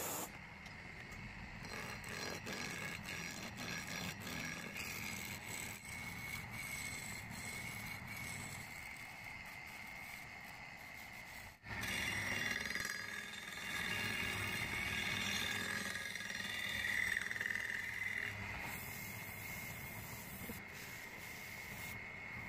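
Wood lathe running with a steady high whine while a hand chisel cuts a spinning wooden blank for an idler wheel, with scattered light ticks in the first half. About halfway through the cutting gets louder and rougher.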